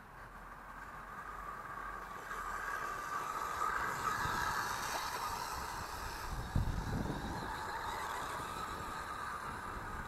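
Electric motor of an MJX Hyper Go 1:14 RC car whining as it drives across the grass, the whine swelling and then easing off as the car speeds up and backs off. A brief low rumble comes about six and a half seconds in.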